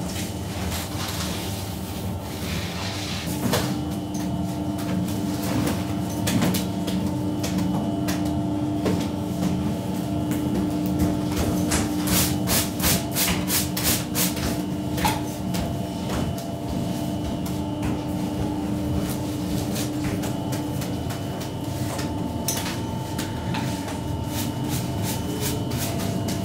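A stiff hand brush scrubbing across a baked round loaf, a quick run of about four strokes a second for a few seconds around the middle, over a steady hum.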